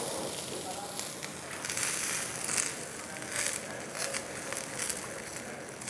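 Oil-brushed chicken malai boti on skewers sizzling and crackling over a very hot tawa on a full-flame stove burner, a steady hiss with pops and brief louder bursts of spitting.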